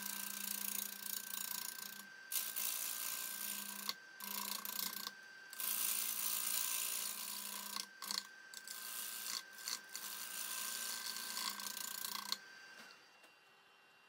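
Wood lathe running with a steady motor hum and a high whine while a bowl gouge cuts the spinning curly maple bowl blank, in a series of hissing passes a second or two long. The cutting stops near the end and the motor sound cuts off as the lathe is switched off.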